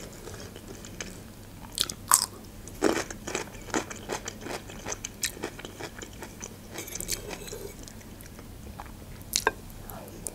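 A person chewing a mouthful of food close to the microphone: irregular soft mouth clicks, with a few sharper clicks about two seconds in, about three seconds in and near the end.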